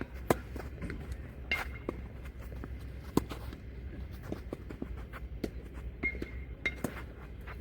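Tennis balls being struck by rackets and bouncing on the court in a rally: sharp pops about a second or so apart, the loudest three in the first half.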